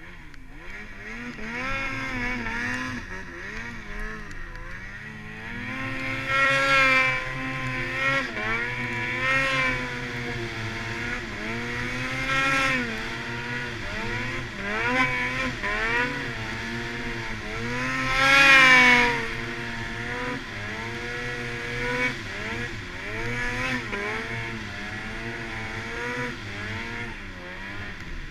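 Snowmobile engine under load through deep fresh powder, its pitch climbing and falling every second or two as the throttle is worked. It surges loudest about a quarter of the way in and again about two-thirds of the way in.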